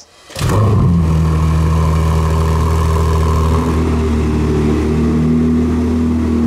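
Ferrari 296 GTS's twin-turbo V6 starting up: it fires about half a second in with a brief flare, then settles to a steady idle.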